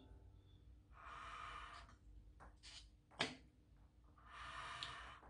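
Quiet eating sounds: two soft breathy rushes of air, each about a second long, and a single sharp click of a metal spoon against the saucepan about three seconds in.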